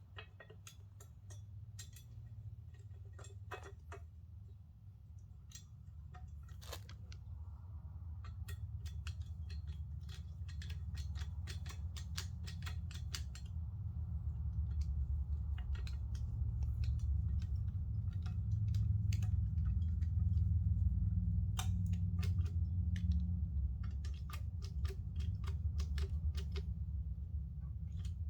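Scattered small clicks and light knocks of screws and a monitor stand bracket being handled while it is unscrewed and refitted, over a low hum that grows louder through the second half.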